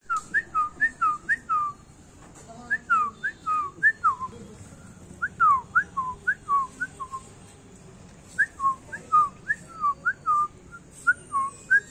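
A person whistling short chirps, each sliding up or down in pitch, about three a second in four runs separated by short pauses.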